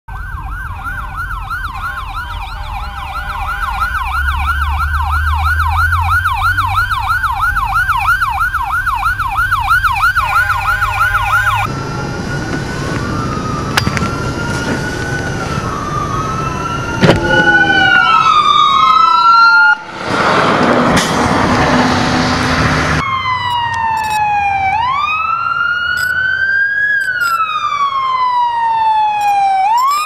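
Emergency vehicle sirens in snow: first a fire truck's fast yelping siren over its engine rumble, then after a cut slower overlapping wailing sirens from an ambulance, a loud blast of noise lasting about three seconds, and finally a police car's siren wailing slowly up and down.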